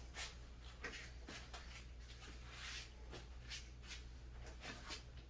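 Faint scattered clicks and rustles of handling, about one every half second to a second, over a steady low hum.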